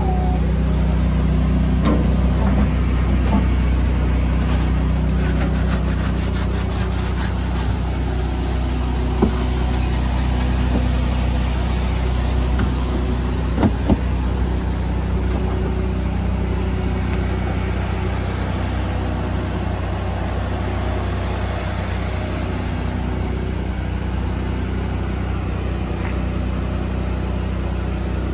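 Engine-driven pressure washer of a bin-washing rig running steadily with a low hum, while a hand wand sprays water into a plastic wheelie bin. A few short knocks sound around the middle.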